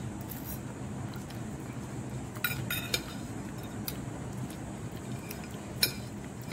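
Metal fork clinking against a plate while eating: several short, sharp clinks spaced irregularly, over a steady low background hum.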